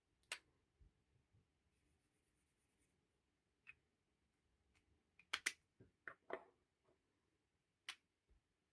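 Near silence broken by a few sharp clicks and taps from pens being handled and set down while ink colours are swatched on paper. The loudest come in a quick cluster about five to six seconds in.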